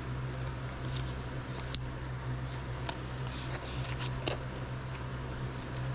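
Gloved hands handling a trading card and a soft plastic card sleeve: light rustling and scattered small clicks, with one sharper click a little under two seconds in, over a steady low hum.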